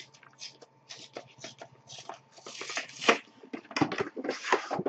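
Trading cards and their packaging being handled: a run of short rustles and crinkles, busier and louder about halfway through and again near the end.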